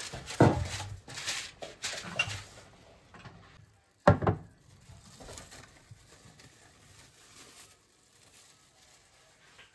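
A metal baking tray lined with parchment paper set down on a countertop with a knock, the paper rustling, then a glass bowl knocked down on the counter about four seconds in. Plastic cling film crinkles faintly as it is peeled off the bowl.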